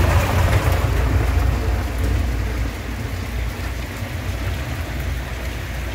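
Heavy rain falling, a steady hiss over a low rumble, growing gradually quieter.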